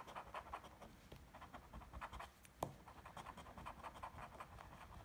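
A coin scraping the coating off a scratch-off lottery ticket: faint, quick back-and-forth scratching strokes, with one sharper click a little past halfway.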